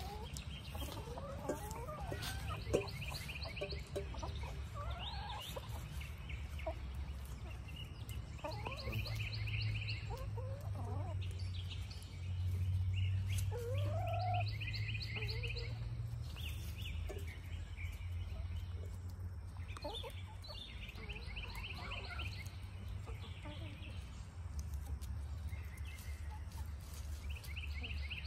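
A flock of hens clucking now and then as they peck and feed, over a low steady rumble. Bursts of rapid high chirping come and go every few seconds.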